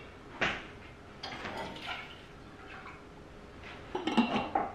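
Kitchen handling sounds of a glass jar and a small metal measuring cup: a sharp knock about half a second in, soft scraping while pouring, and a few clinks near the end as the jar is set down and its lid handled.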